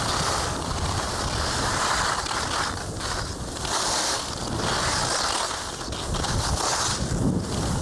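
Skis scraping over icy snow in swells about once a second, turn after turn, with wind buffeting the microphone.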